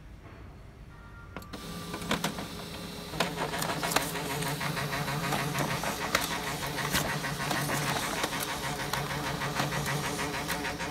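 HP LaserJet M203dn laser printer starting up and printing a configuration report page: a few clicks as the mechanism engages about two seconds in, then steady running with a low hum and rapid ticking.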